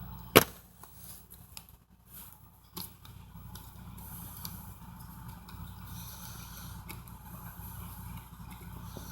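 Plastic DVD case being handled, with a sharp snap about half a second in and a smaller click near three seconds, as the case's catch or disc hub is worked. A steady low hum sits underneath.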